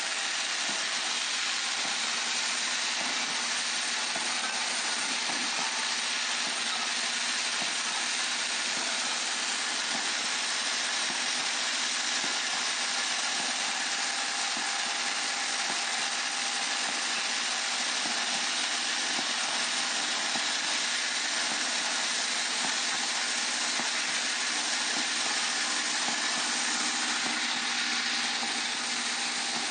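Vibratory bowl feeders of an automatic hardware packing machine running together: a steady electric buzz with the rattle of metal pins and screws travelling round the bowls.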